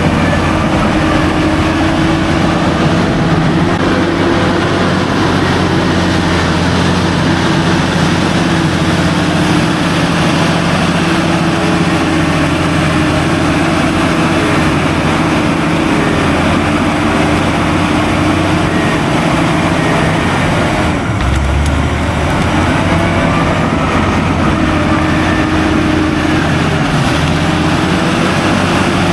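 Diesel engine of heavy earthmoving machinery running steadily at work, its note shifting briefly about two-thirds of the way through.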